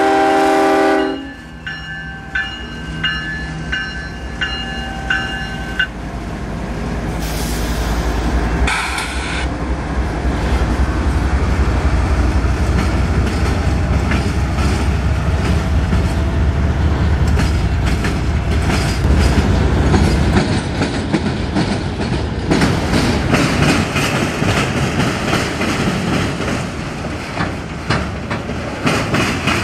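A CSX diesel locomotive's horn ends about a second in, and a bell rings for a few seconds. The locomotive's low engine rumble then builds and passes, followed by a long string of autorack freight cars rolling by with steady rail noise and clicking wheels.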